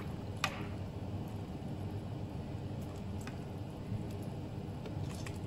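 Metal ladle stirring soup in a stainless steel pot, with a few light clinks of the ladle against the pot over a steady low hum.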